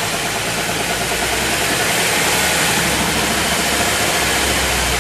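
Car running with a steady humming, rushing noise from the right-side wheel: the hum of a bad wheel bearing.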